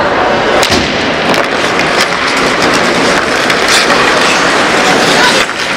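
Ice hockey play: skate blades scraping the ice and sticks clacking on the ice and puck, a continuous loud scraping with a few sharper knocks, the clearest about two-thirds of a second and nearly four seconds in.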